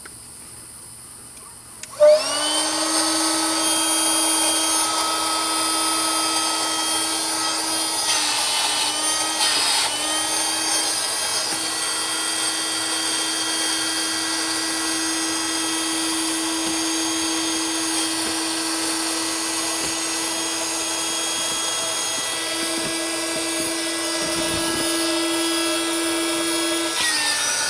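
Small 12-volt electric air pump switching on about two seconds in and running with a steady hum while it inflates an air mattress chamber. The pitch wavers briefly early on as the load shifts, and the pump cuts off just before the end.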